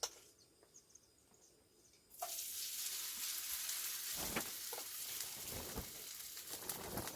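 Wild chive pancake (buchujeon) frying in hot oil: after a near-quiet start, a loud, steady sizzle begins suddenly about two seconds in, with a few soft knocks in the pan.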